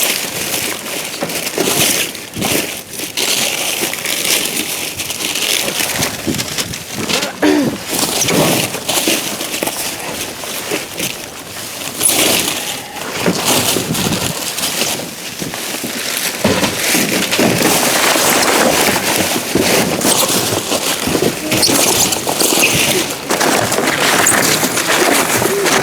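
Trash and packaging being handled and rummaged through in a dumpster: irregular rustling, crackling and knocking, with wind noise on the microphone.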